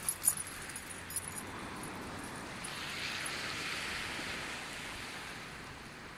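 Surf washing onto a beach: a steady hiss that swells about halfway through and then slowly fades. A few jingles of dog-collar tags sound in the first second or so.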